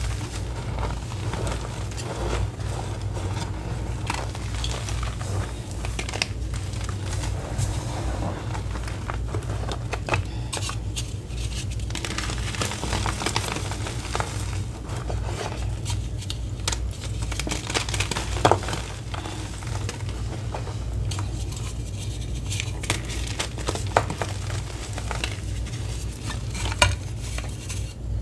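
Reformed gym chalk, home-made from gym chalk and cornstarch, being squeezed and crushed by hand into loose powder: a continuous fine crunching and crumbling, with a few louder sharp snaps in the last third.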